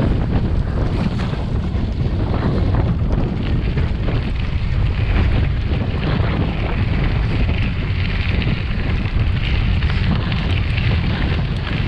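Wind buffeting the microphone of a camera riding along on a gravel bike at speed: a loud, steady, low rumble with a rushing haze over it.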